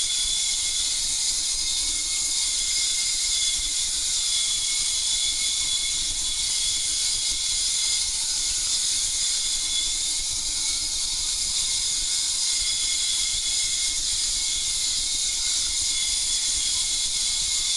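High-power ultrasonic waveguide running in water: a steady, shrill hiss of cavitation with two high whistling tones, loud enough to leave the ears ringing.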